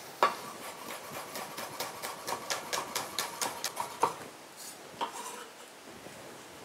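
Chef's knife chopping chives on a wooden cutting board: a sharp knock about a quarter second in, then a quick run of knife taps on the board, about five a second, and a few single knocks later on.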